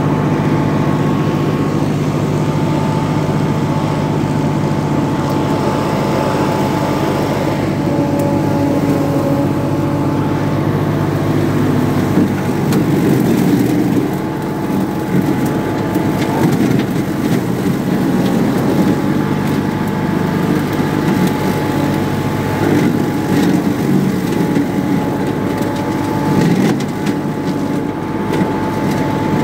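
Grillo 27 hp four-wheel-drive ride-on mower's engine running steadily under load. Its cutting deck chews through tall dry grass and brush, turning rougher and more crackling from about halfway through.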